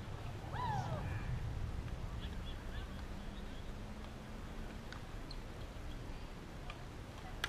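Softball bat hitting a slowpitch softball near the end, one sharp crack. Before it, a short falling cry about half a second in over a low murmur of voices on the field.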